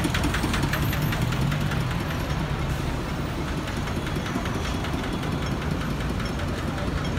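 Busy street traffic with diesel lorry engines idling and running close by, a steady low rumble with a faint engine clatter in the first couple of seconds.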